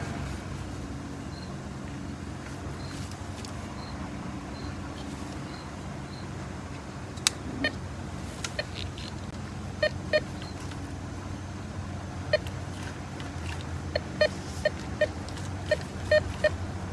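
A steady low engine drone, like a vehicle running nearby, goes on throughout. From about ten seconds in, short electronic beeps from a metal detector sounding over a target come more and more often near the end.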